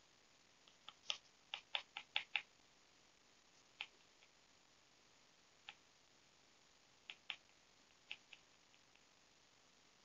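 Short, quick scratches of a graphite pencil on paper as strokes are hatched in: about six in quick succession a second or so in, then single and paired strokes spaced out.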